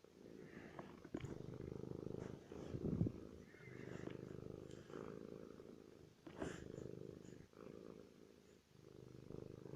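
Domestic cat purring steadily, the purr coming in stretches of a second or two that break off briefly as it breathes, with a few short taps or rustles.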